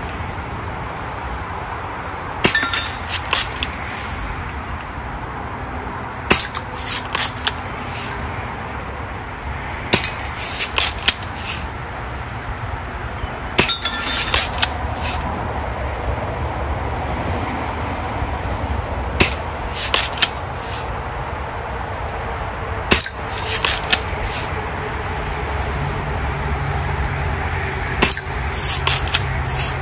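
Daisy Red Ryder lever-action BB gun being cocked and fired over and over, with sharp metallic clinks of BBs striking metal spinner targets. The clicks and clinks come in seven quick bursts, about every three to four seconds.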